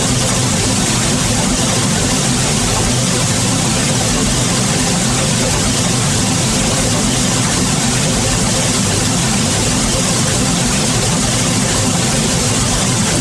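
Flamethrower sound effect: a steady, unbroken rush of flame that holds an even level throughout.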